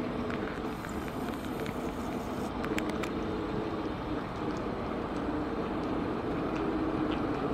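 Steady hum of street vehicles with a low droning tone that grows a little louder near the end.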